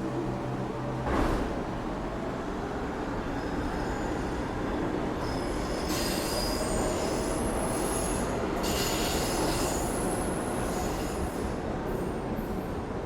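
A train running on rails, with a thump about a second in, then high-pitched wheel squeal rising and falling over the steady rumble from about five seconds in.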